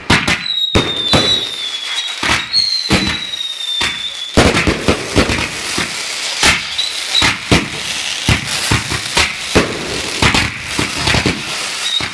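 Fireworks going off in a rapid barrage of bangs and crackling bursts. Through the first four seconds or so, high whistles from whistling fireworks sound over the bangs, each dropping slightly in pitch.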